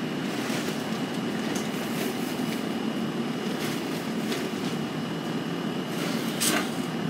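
A steady low mechanical hum with a faint high tone, with scattered rustles and light knocks of garden supplies being handled and moved, the loudest about six and a half seconds in.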